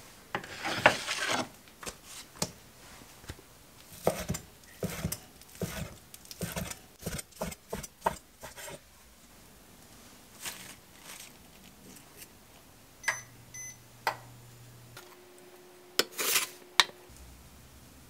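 Kitchen prep sounds: a long scrape of chopped vegetables across a wooden cutting board about a second in, then a run of light knocks and clatter of utensils and cookware. Later an induction cooktop gives short beeps with a low hum, followed by a brief loud rush near the end.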